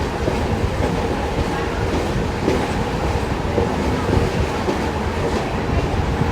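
Passenger train running at a steady pace: a continuous rumble with the clatter of wheels over the rails.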